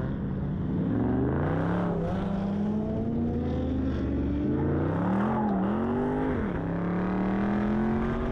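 Car engine accelerating hard. Its pitch climbs in long pulls, dropping sharply a few times in the middle, as with gear changes, then rising again.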